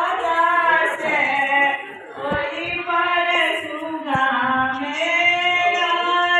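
Women singing a devotional song into a microphone, with long held, gliding notes. There are two brief low thumps, about two and four seconds in.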